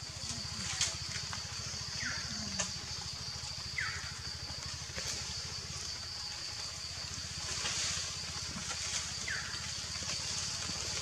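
Outdoor woodland ambience: a steady high-pitched hiss with a low rumble underneath. Three short falling chirps come about two seconds in, near four seconds and near nine seconds, with a few faint clicks.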